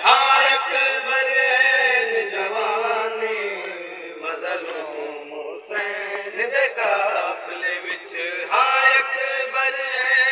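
Male voice chanting a noha, a Muharram lament, in long sung phrases that rise and fall in pitch.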